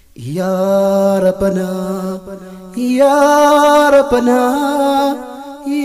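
Wordless vocal opening of an Amharic nasheed: long held chanted notes on one pitch, stepping up to a higher held note about three seconds in.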